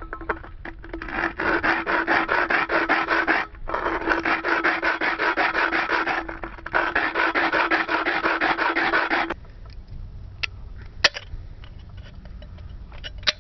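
The bottom of an aluminium drink can being rubbed hard against a rough stone to sand it through so the can end comes off: a rapid gritty scraping of about five strokes a second, broken by two short pauses. It stops about nine seconds in, and a few light clicks follow.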